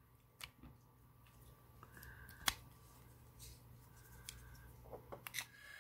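Faint handling of small plastic vape pods and a pod-vape body: a few light clicks and taps with soft rustling, the sharpest click about two and a half seconds in.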